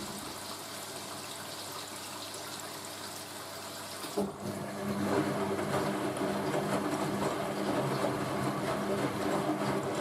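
Hoover A3060 Electronic 1100 washing machine taking in water as it tops up for the second rinse, a steady rush of water. About four seconds in it gets suddenly louder, and a steady hum joins the water.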